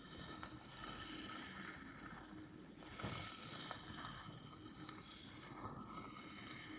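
Close-miked ASMR scratching, a continuous rustling scrape on an object's surface, with a few light taps or clicks.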